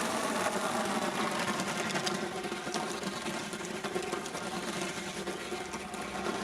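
The electric drive motors of a home-built remote-control Henry vacuum cleaner running, a steady whirring whine as it drives about.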